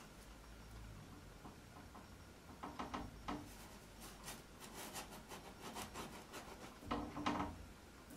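Paintbrush rubbing and dabbing against stretched canvas in a few runs of quick, scratchy strokes, the loudest just after seven seconds.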